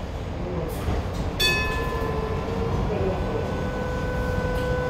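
Hong Kong Light Rail Kawasaki light rail car: a low rumble, and about one and a half seconds in a steady electric whine of several high tones sets in as the car pulls away after the doors close.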